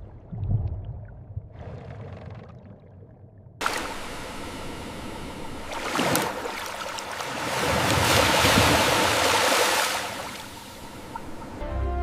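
Rushing, churning water starting suddenly about three and a half seconds in after a low rumble, swelling and then fading away.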